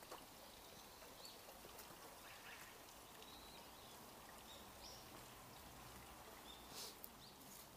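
Near silence: faint outdoor background noise, with a few short, faint high chirps and a couple of soft clicks near the end.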